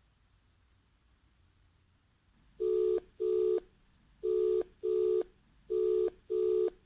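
Telephone ringback tone of an outgoing call ringing at the other end: short steady tones in pairs, three double rings, starting about two and a half seconds in.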